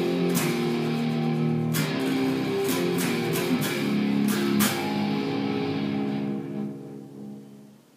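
Stratocaster-style electric guitar played with a pick, single notes and chords ringing on. The playing stops about six and a half seconds in and the last notes die away.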